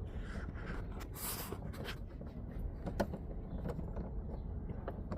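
Light handling noises from refitting door-panel screws: a brief rustle about a second in and a few light clicks of a tool and a screw, over a steady low hum.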